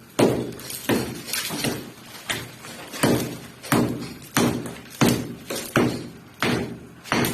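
Hammer blows struck at a steady pace, about one and a half a second, each with a short ringing tail.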